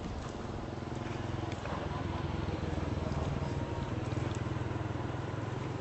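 An engine runs steadily at low speed, with a low, even hum throughout. A few faint splashes come from a monkey wading in a water-filled jar.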